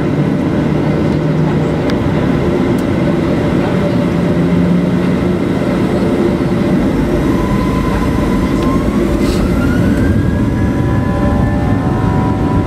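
Boeing 737-800's CFM56-7B jet engines heard from inside the cabin over the wing: a steady rumble, with a whine rising in pitch about halfway through as the engines begin to spool up for takeoff.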